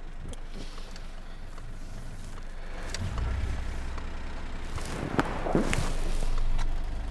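Car engine running at low revs, heard from inside the cabin while the car is driven slowly in reverse. The engine note grows louder about three seconds in, and there are a few sharp clicks and knocks around five seconds in.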